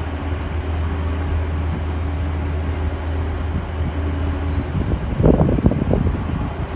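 A boat engine running steadily, a low drone, with a brief louder, rougher patch about five seconds in.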